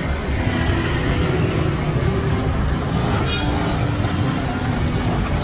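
Busy road traffic, vehicle engines and tyres running steadily, with a brief high squeak about three seconds in.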